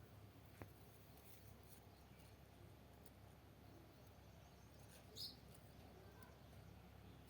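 Near silence: faint outdoor ambience with a low hum, a faint click about half a second in, and a single short high chirp about five seconds in.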